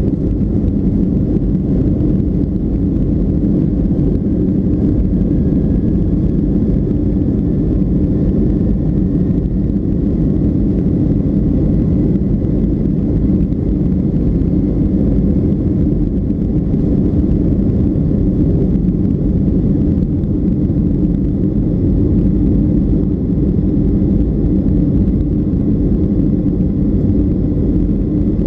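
Boeing 757-200's engines at takeoff thrust, heard inside the cabin from a window seat behind the wing: a steady low rumble through the takeoff roll and liftoff, with a faint whine rising in pitch in the first half.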